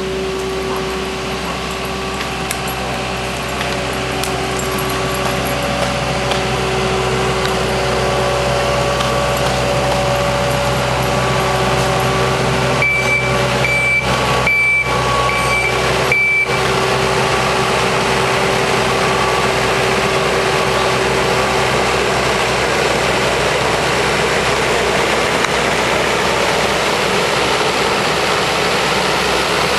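A heavy vehicle's engine runs throughout and slowly grows louder. A reversing alarm beeps about four times around the middle.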